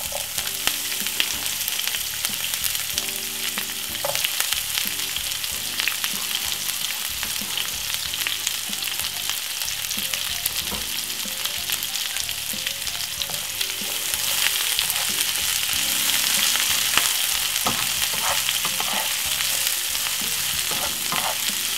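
Sliced carrot, sweet peppers and onion sizzling as they sauté in hot vegetable oil in a nonstick frying pan, with scattered clicks of a slotted spatula stirring them. The sizzle grows louder about two-thirds of the way in.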